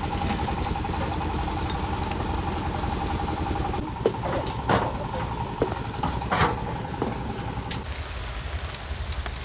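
An engine running steadily with a held whine over a low rumble, and a few sharp knocks about four to six and a half seconds in. About eight seconds in the whine stops abruptly, leaving a quieter rumble.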